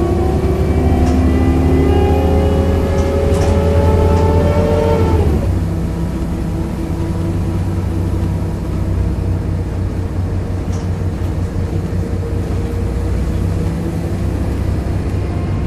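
Volvo B7RLE bus's 7-litre diesel and driveline pulling away, a set of whining tones climbing in pitch for about five seconds. The tones then drop away and it runs on steadily and a little quieter, as if the driver has eased off.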